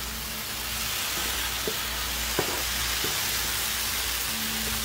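Chicken and vegetables frying in a pan on a small grill: a steady sizzling hiss, with a few faint clicks partway through.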